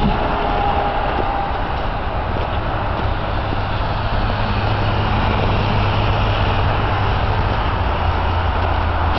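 A running engine: a steady rumble with a low droning hum that grows stronger about three seconds in.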